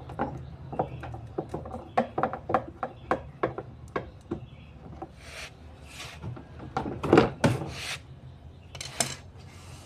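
Irregular clicks, taps and knocks of tools and parts being handled during a washing machine repair, giving way about halfway through to several longer scraping, rubbing sounds.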